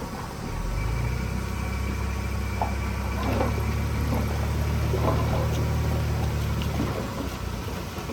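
Diesel engine of heavy earthmoving machinery running steadily, with a few short metallic sounds over it about two and a half, three and a half and five seconds in.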